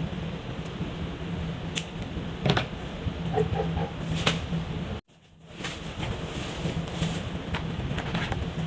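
Felt-tip markers rubbing and scratching across paper, with a low steady hum and several sharp clicks and taps. The sound cuts out suddenly about five seconds in and fades back up.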